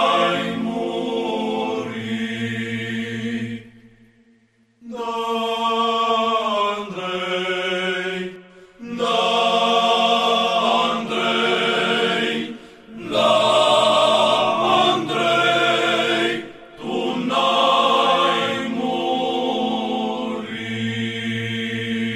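Choir singing Orthodox church chant as a soundtrack, in long phrases over a low held note, with short breaks between phrases about every four seconds.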